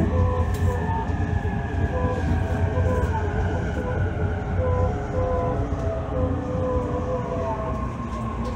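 E531 series electric train running on the line, heard from inside a passenger car: a steady low rumble with faint humming motor tones above it.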